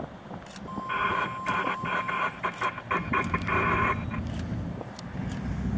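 A scanner radio gives a short garbled transmission, a brief steady tone about a second in and then about three seconds of choppy, band-limited chatter. Under it and after it, the low drone of a light twin-engine airplane's engines grows louder near the end.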